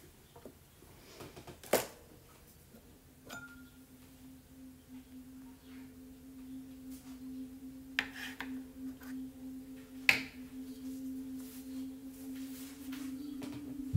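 A few sharp knocks from objects handled on a desk, and from about three seconds in a steady low hum that grows slightly louder toward the end.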